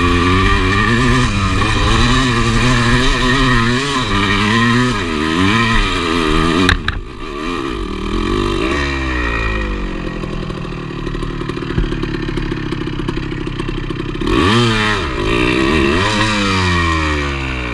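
A 1985 Yamaha IT200 single-cylinder two-stroke dirt bike engine revving hard and unevenly on a steep climb, its revs rising and falling as the rear wheel fights for grip in loose soil. About seven seconds in there is a knock and the revs drop to a lower, steadier run. Near fourteen seconds the engine gives a quick rev up and down.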